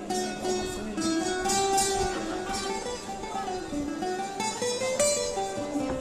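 Acoustic guitar being plucked and strummed, with a man's voice singing a melody over it.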